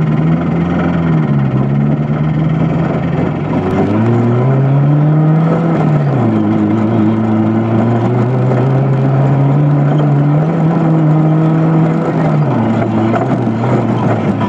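Rebuilt Toyota 22R four-cylinder engine running under throttle, its pitch climbing and dropping several times and holding steady through the middle. The owner reports a loud, high-pitched tick that comes and goes at all rpm.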